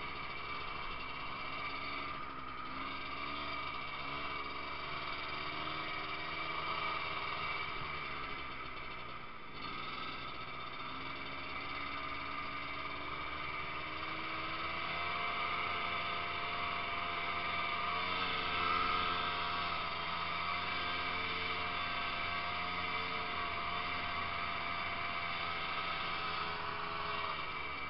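Ski-Doo snowmobile engine running while the sled is ridden, its pitch rising and falling with the throttle, dropping sharply about nine seconds in and then climbing again.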